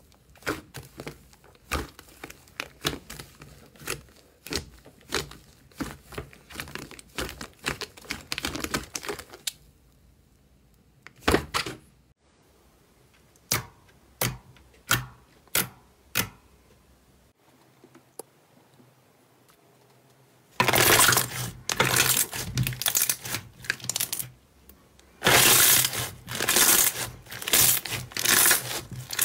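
Slime being squeezed, poked and pressed by hand: a quick run of small clicks and pops, then a quieter stretch with a few scattered pops. About twenty seconds in come two loud stretches of dense crackling, with a short break between them.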